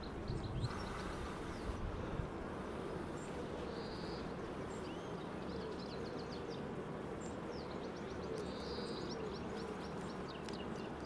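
Honeybees buzzing in a steady hum around an open hive. The bees are getting agitated as frames are taken from them. Small birds chirp repeatedly in the background.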